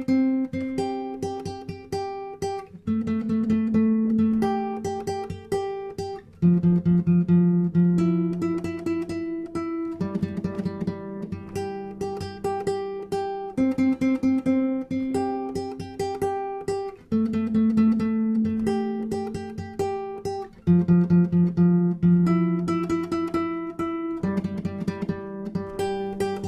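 Acoustic guitar playing the instrumental introduction to a song, with many quick plucked notes and a change of chord about every three and a half seconds.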